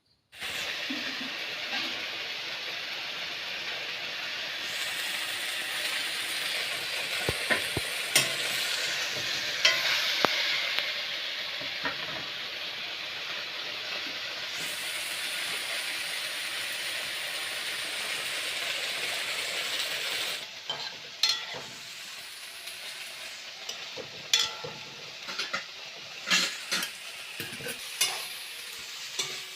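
Food sizzling as it fries in hot oil in a pan, a steady hiss. About twenty seconds in the sizzle drops lower and a utensil knocks and scrapes against the pan again and again as the food is stirred.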